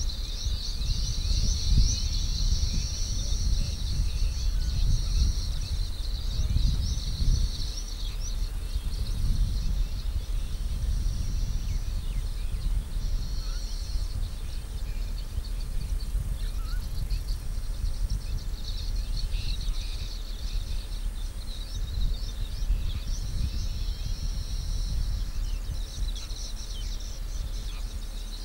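Grassland ambience: insects and birds chirping in a high band that comes and goes every few seconds, strongest in the first few seconds, over a continuous low rumble.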